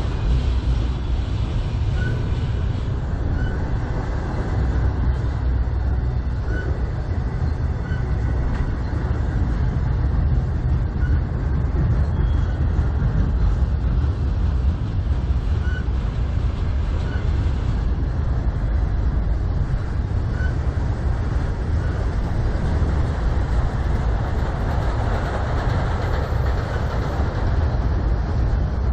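Autorack freight cars rolling past close by, steel wheels on the rails making a steady rumble. Faint short high clicks come through every second or two.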